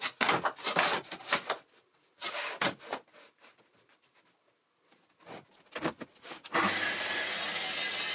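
Thin MDF template sheets sliding and knocking on a birch plywood board, in a few short scrapes and taps. About six and a half seconds in, a Festool track saw starts cutting through the birch plywood along its guide rail, running steadily with a low hum.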